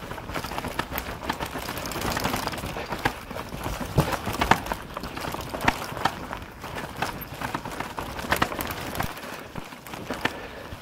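Mountain bike rattling and knocking over rough ground on a descent: irregular sharp knocks over a steady rush of tyre and wind noise, a couple of the loudest knocks about four seconds in.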